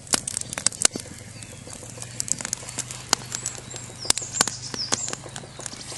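Wood fire crackling inside a stacked-stone oven, with many sharp, irregular pops.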